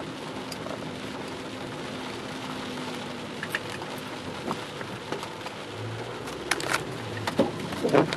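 Rain on a moving car, heard from inside the cabin: a steady hiss with a few sharp ticks scattered through it.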